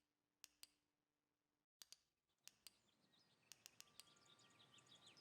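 Sharp clicks, in pairs and a short run of four, over very quiet room tone. About halfway the background changes to a faint outdoor hush with small birds chirping.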